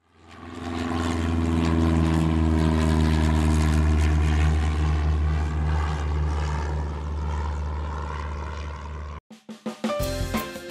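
Light aircraft piston engine and propeller running steadily with a low drone, fading in at the start. The engine cuts off suddenly near the end and music with a drum beat begins.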